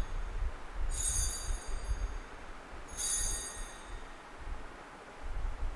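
Altar bell rung twice, about two seconds apart, each ring a bright high chime fading over about a second, marking the elevation of the consecrated host; a low rumble runs underneath.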